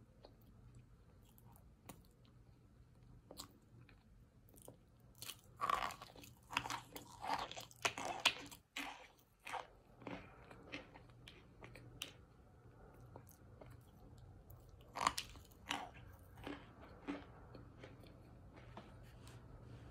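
Chunks of compressed cornstarch crunching as they are bitten and chewed close to the microphone. A quick run of crisp crunches comes about a quarter of the way in, then a few more about three-quarters through, with quieter chewing in between.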